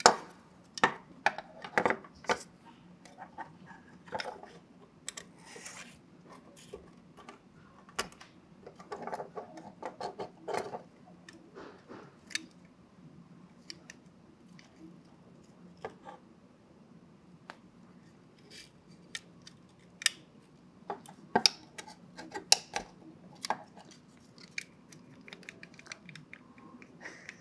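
Hands working a cord through a 3D-printed plastic trigger guard and tying a knot: scattered soft clicks and taps of the plastic part and rubbing of the cord, in irregular clusters.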